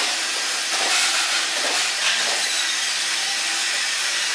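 Steady hissing noise of workshop machinery on a sheet-steel kitchen-sink production floor, with faint steady hums underneath.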